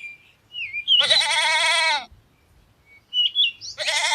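Goat bleating twice, each call a long quavering bleat of about a second, with small birds chirping in the background between the calls.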